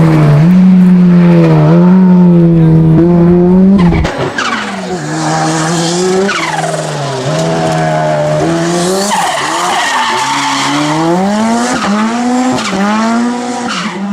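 Ford Sierra RS500 Cosworth's turbocharged Cosworth YB four-cylinder engine driven hard at racing speed, its revs climbing and then dropping sharply again and again as it shifts and lifts off. About four seconds in the sound cuts suddenly and turns quieter.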